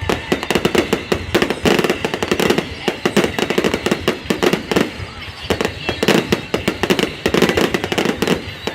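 Fireworks display: a dense, continuous barrage of rapid bangs and crackles, with voices underneath.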